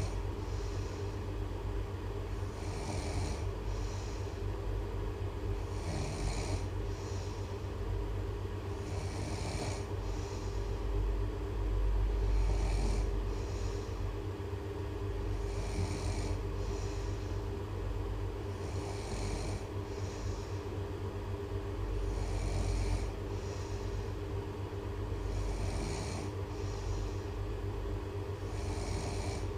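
Snoring repeating at an even pace, about one snore every three seconds, each with a hiss of breath, over a steady low hum.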